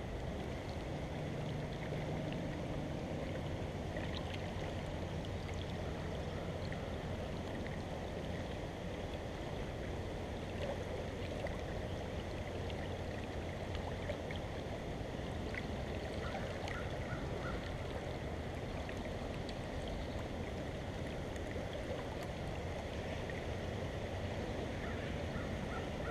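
Creek water flowing steadily, a constant rushing of the current around the wader's position.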